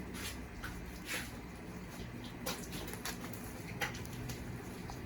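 Soft scattered rustles and light taps of a sansevieria plant and its packing being handled, over a faint steady low hum.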